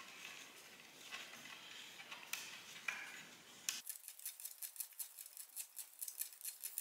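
Braided fishing line being wound as a center serving onto a bowstring by spinning a grooved wooden serving jig around the string: soft rubbing at first, then, from about four seconds in, a fast run of light ticks as the jig circles the string.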